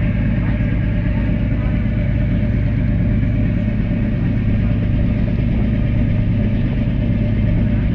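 An engine running steadily with a constant low drone, its pitch and level unchanging throughout.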